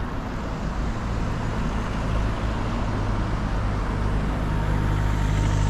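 Motor vehicle engine running with a steady low hum that grows a little louder after about a second.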